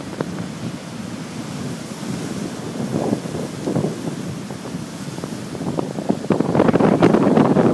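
Heavy storm waves on Lake Superior breaking and washing over a rocky shore, with wind buffeting the microphone. The surf gets much louder about six seconds in as a bigger wave crashes onto the rocks.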